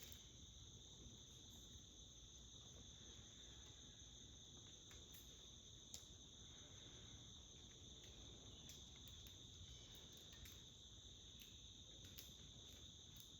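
Faint, steady high-pitched chorus of insects, with one soft click about six seconds in.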